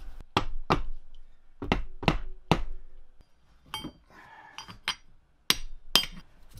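Sharp metal knocks and clinks, about nine in all, as a putty knife is driven into the cover seam of a worm gearbox housing to break it open, with a short scraping rub between the knocks a little past the middle.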